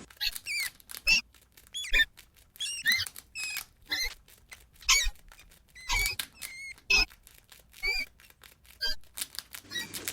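Rat squeaking: a rapid run of short, high squeaks, some bending up and down in pitch, with small clicks in between.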